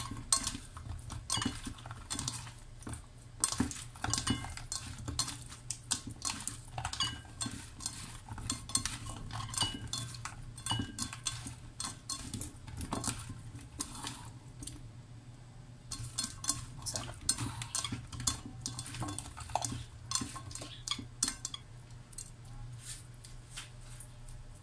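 Hands mixing oiled raw potato, carrot and lemon pieces on a ceramic plate: a dense, irregular run of small clicks and clinks as the pieces knock against the plate and each other, thinning out for a moment a little past the middle.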